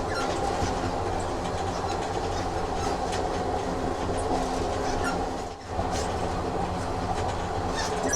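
Train running on rails: a steady rumble with a few faint clicks and a brief dip in level about five and a half seconds in.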